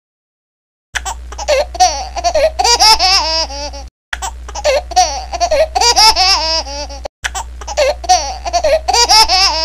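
High-pitched laughing sound effect, loud and looped: the same roughly three-second laugh plays three times in a row, after about a second of silence.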